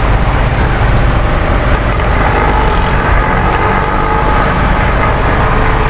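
Steady road traffic noise: the constant rumble of passing vehicles along a busy street.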